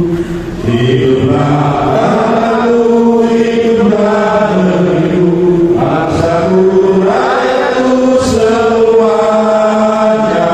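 Voices chanting in long held notes that step from pitch to pitch, with no spoken words.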